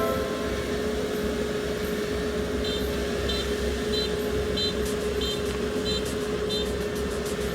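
Kubota ER470 combine harvester running steadily with a constant hum and low rumble. Partway in, a machine warning beeper sounds about seven short high beeps, roughly one and a half a second.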